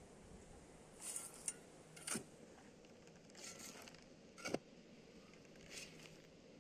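Shovelfuls of soil and gravel tossed onto a dirt pile in a concrete channel. It makes faint, short sliding and pattering scrapes, about five of them, a second or so apart.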